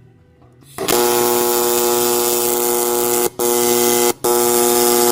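AC TIG welding arc on aluminum, a loud steady buzz that starts about a second in and cuts out briefly twice in the second half.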